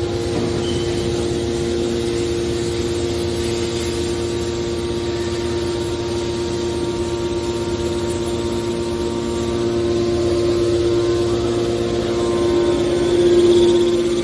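Hydraulic scrap-metal baler running, a steady machine hum from its pump and motor that swells briefly near the end.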